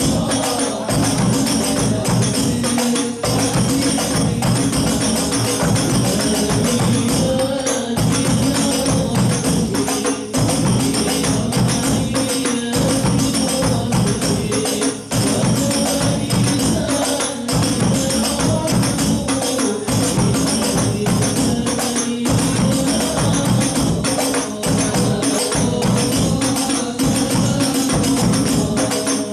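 Hadroh ensemble of rebana frame drums with a hand drum and a bass drum playing a dense, fast, unbroken rhythm.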